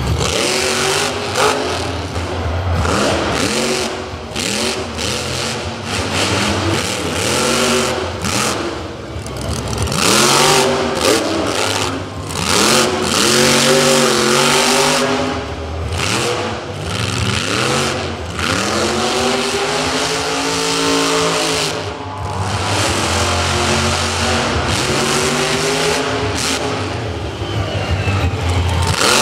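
Over Bored monster truck's engine revving hard and dropping back, over and over, its pitch sweeping up and down every second or two as the truck drives its run on dirt.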